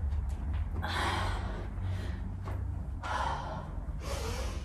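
A woman breathing hard from exertion during a jumping workout: three forceful exhales, one about a second in and two close together near the end, over a low steady hum.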